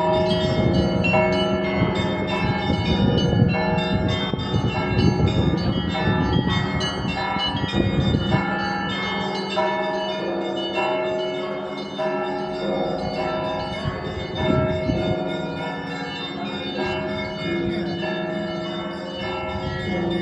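Russian Orthodox church bells ringing the Easter peal: many bells struck in quick, overlapping succession over the steady low hum of a large bell.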